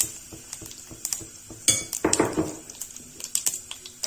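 Cumin seeds and dried fenugreek leaves sizzling in hot oil in an aluminium kadai: a steady hiss with many small scattered crackles and pops, and a louder burst about two seconds in.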